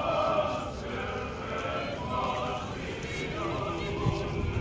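Orthodox church chanting: a group of voices sings held, pitched lines together in liturgical chant.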